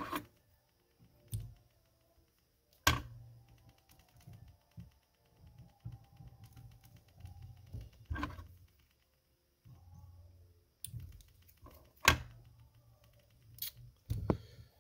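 Fly-tying bobbin and vise being handled as thread is wrapped onto a hook: scattered sharp clicks and several louder knocks over an intermittent low rumble.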